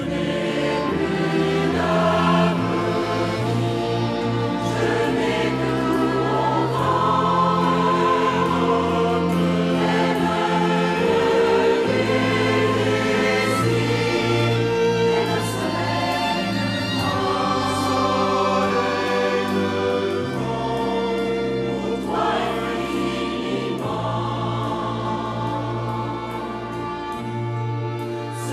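Large mixed choir singing slow, held chords in harmony, with a steady low bass part beneath.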